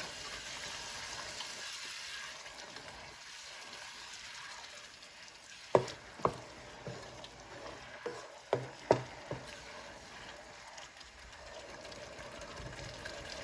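Onions sizzling as they fry in a pot, with a spoon stirring and knocking sharply against the pot about six times in the middle.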